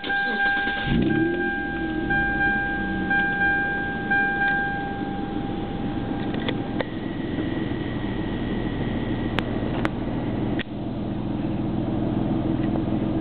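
A 2000-2005 Mitsubishi Eclipse engine starts about a second in, its pitch rising briefly before it settles into a steady idle. A steady electronic tone sounds over it for the first half, switches to a higher tone, then stops, and a few sharp clicks come near the end.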